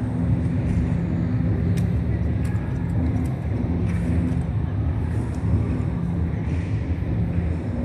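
Steady low machine hum and rumble, with a few faint clicks.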